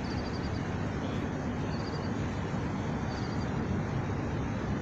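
A steady low outdoor rumble, like wind on the microphone mixed with distant traffic. A faint high trill of quick chirps comes and goes every second or two.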